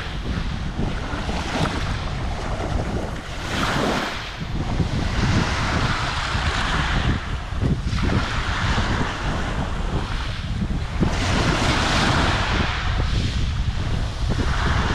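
Small waves washing in and out over a pebble beach, the surf hiss swelling every three to four seconds, with wind buffeting the microphone.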